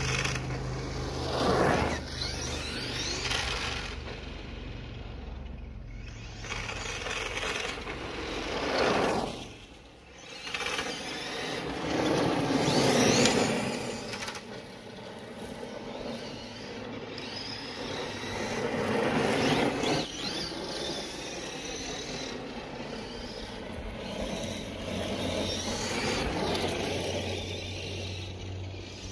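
Tamiya GF-01 Heavy Dump Truck radio-controlled model driving in several fast passes: the whine of its electric motor and gear drive rising and falling as it comes and goes, with its tyres scrabbling over asphalt and then loose gravel.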